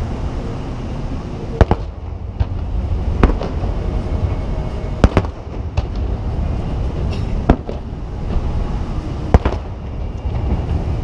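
Aerial fireworks shells bursting: about six sharp booms at irregular intervals of one to two seconds, the first a quick double, over steady low background noise.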